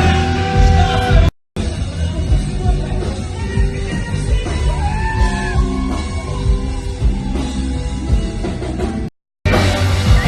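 Live pop-rock music with a singing voice over a full band. The sound drops out completely twice for a moment, about a second and a half in and about nine seconds in.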